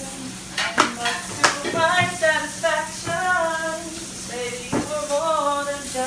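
Dishwasher running and "singing": a warbling, voice-like whistle that slides up and down in pitch over the hiss of its water spray, with a few sharp clicks.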